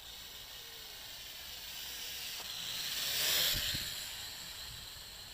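Small JXD 509G toy quadcopter in flight, its motors and propellers making a thin, high hiss that swells to its loudest about three seconds in and then fades as it is blown away. A short low gust buffets the microphone just after the peak.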